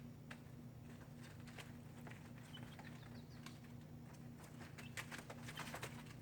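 Chickens pecking and scratching: a scatter of light taps and clicks, thickest about five seconds in, over a steady low hum.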